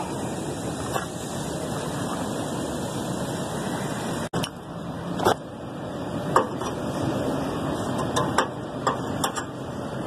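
A wrench clicking and tapping against a bolt on the blower motor mount, a handful of sharp metallic ticks in the second half, over a steady mechanical hum.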